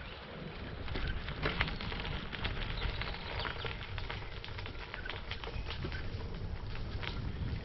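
Bicycle tyres rolling over light gravel: a dense run of small crackles over a steady low rumble.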